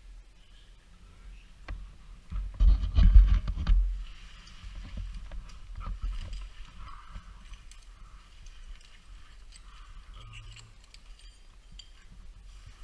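Metal climbing hardware, carabiners and aid gear, clinking and clicking as it is handled and sorted by hand. A loud low rumble of handling noise comes about two and a half seconds in and lasts about a second and a half.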